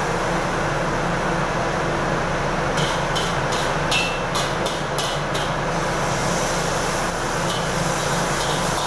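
Steady loud rushing of a gas wok burner and kitchen exhaust during stir-frying, with a quick run of metal ladle strikes and scrapes against the steel wok from about three to six seconds in.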